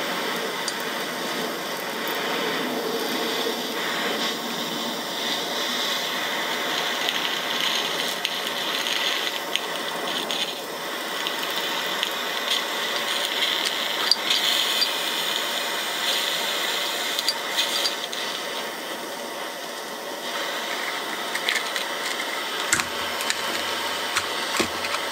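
Steady hiss of a small handheld butane torch flame heating an 8 mm bullet connector so the solder melts and wicks in, with a few light clicks near the end.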